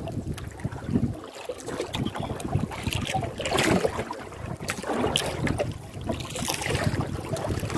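Wind buffeting the microphone on an open sea, with water sloshing around a small outrigger boat's hull in a few swells.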